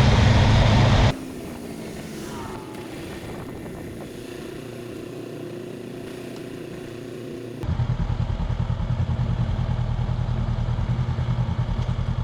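Motorbike being ridden: engine running with road and wind noise. Hard cuts come about a second in and about two-thirds of the way through, and the last part is louder, with a fast low pulsing.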